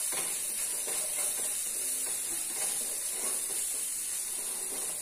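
Green peas sizzling in a non-stick frying pan, stirred with a wooden spatula: a steady hiss with soft scraping strokes of the spatula across the pan.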